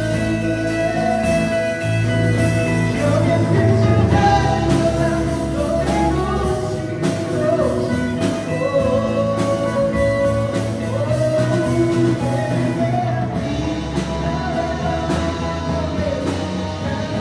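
A small rock band playing a pop song live on acoustic and electric guitars, bass, keyboard and drum kit, with a melody line carried over the steady beat.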